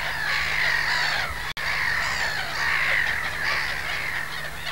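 A gull colony calling in alarm, many birds' harsh cries overlapping without a break: the colony is agitated by a raptor hunting for its eggs or young. The sound drops out for an instant about one and a half seconds in.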